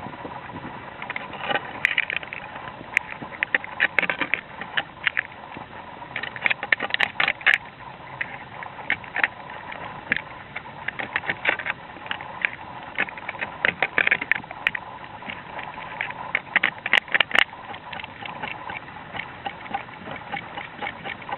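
Irregular clicks, knocks and scrapes of hand tools working on ceramic roof tiles while the old tile-fixing material is removed.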